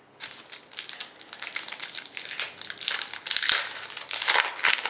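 Plastic card-pack wrapper and card packaging crinkling as trading cards are handled, a fast irregular run of crackles that grows busier toward the end.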